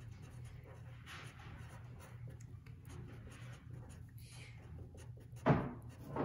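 Marker writing on a paper cutout: soft, scratchy pen strokes in short runs. One short, louder sound comes near the end.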